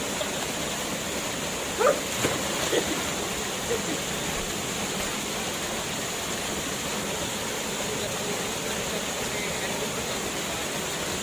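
Steady rushing of a forest waterfall. A few brief sounds rise above it between about two and four seconds in.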